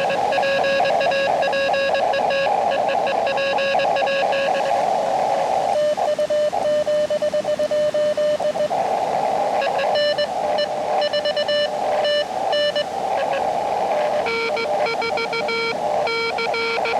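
Morse code from an Elecraft KX2 transceiver: tones near 600 Hz keyed on and off in dits and dahs over a steady hiss of band noise. The keying pauses to bare hiss about five, nine and thirteen seconds in. Near the end a second, lower-pitched signal is keyed as well.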